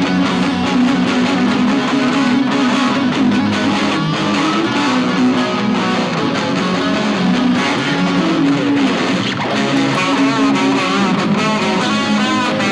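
Guitar music: strummed chords under a lead line, whose notes waver with bends and vibrato near the end.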